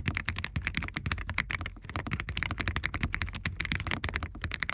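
Fast, continuous typing on an Ajazz AKS068 Pro mechanical keyboard: a dense run of key clicks, many strokes a second, without a break.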